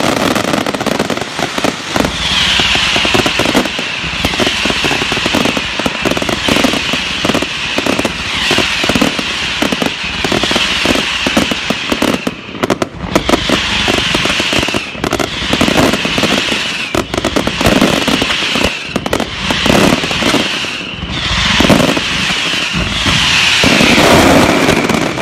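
Daytime coloured-smoke fireworks barrage going off in rapid succession: a continuous run of bangs and crackling, with a high hiss that swells and fades every second or two.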